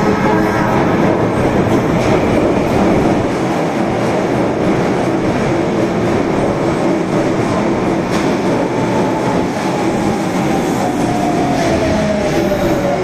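Tanimachi Line subway train running, a steady rumble of wheels on the rails. From about two-thirds of the way in, a motor whine falls slowly in pitch as the train slows.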